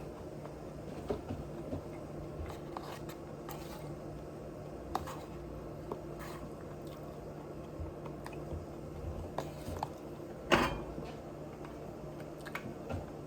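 Close-miked chewing and munching of food: wet mouth sounds and small scattered clicks, with one louder short sound about ten seconds in, over a steady low hum.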